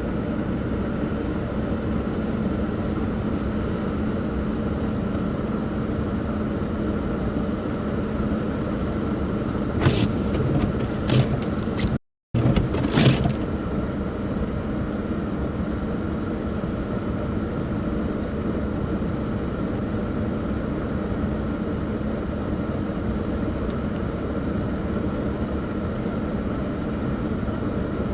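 Steady motor vehicle running noise with a faint constant hum. The sound cuts out briefly about twelve seconds in, with a few clicks on either side of the gap.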